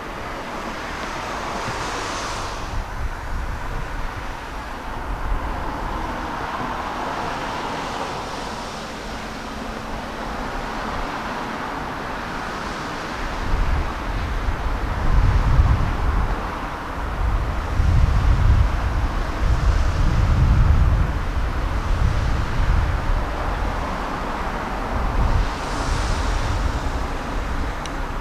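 Kotoden Shido Line electric train approaching slowly. A low, uneven rumble swells about halfway through and stays loud over a steady outdoor hiss.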